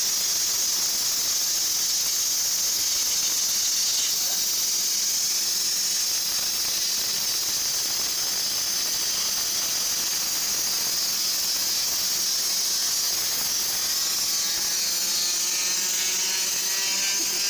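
Oxy-fuel cutting torch hissing steadily as gas rushes from its nozzle, with a faint rising whistle near the end.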